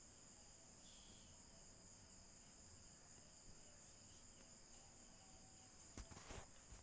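Near silence with a faint steady high-pitched whine. About six seconds in come a couple of light clinks from a steel ladle against the pot as the dal is stirred.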